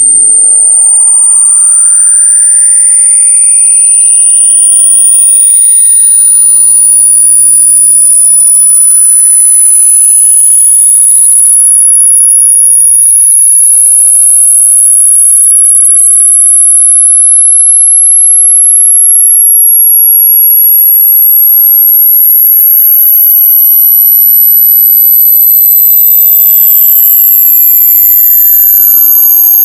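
Loud electronic test tone, a single pure whistle very high in pitch that rises slowly and steadily. Fainter electronic tones sweep up and down around it and briefly merge with it about halfway through.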